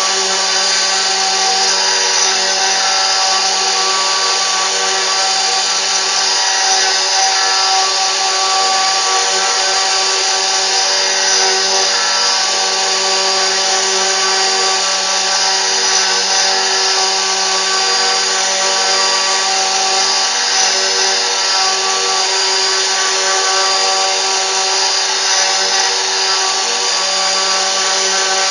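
CNC machine's spindle running steadily, a constant whine over an even hiss.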